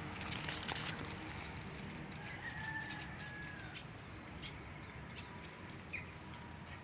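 A rooster crowing once in the distance, a drawn-out call starting about two seconds in. Scattered light crunches of steps on a gravel path are heard with it.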